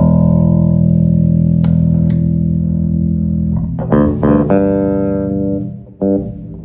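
Wolf S7-7 seven-string electric bass played through a flat, uncompressed bass amp: a chord of several notes is struck and left to sustain for about four seconds, then a quick run of notes about four seconds in rings on, and one short last note sounds near the end.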